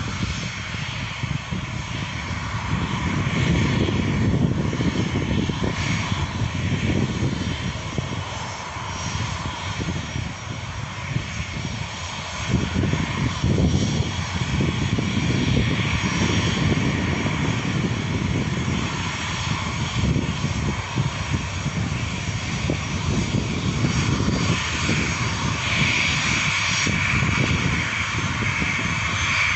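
Jet engines of a Lion Air Boeing 737 whining at taxi power over a low, uneven rumble. The whine grows louder about three quarters of the way through, as the plane turns toward the microphone.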